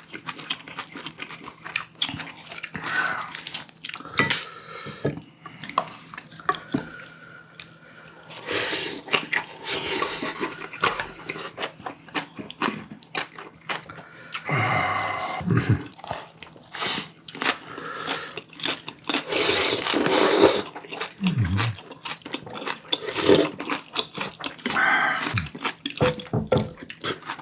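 Close-miked eating: chewing and crunching of stir-fried baby octopus with bean sprouts and rice, with many short clicks of utensils against dishes.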